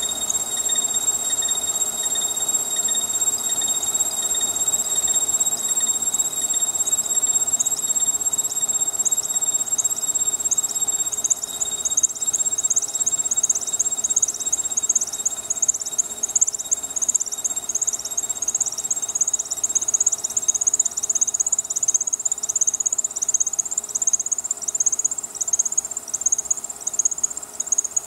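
Indexable corner-rounding radius cutter milling stainless steel at slow speed and light feed. A steady high whine, with a rapid, flickering high-pitched squeal from the cut building from about eight seconds in and loudest in the second half.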